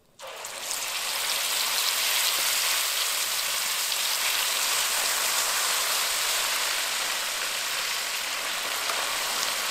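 Mole paste of blended chiles, nuts and seeds frying in hot lard in a clay pot, with a loud, steady sizzle that starts suddenly as the paste goes in.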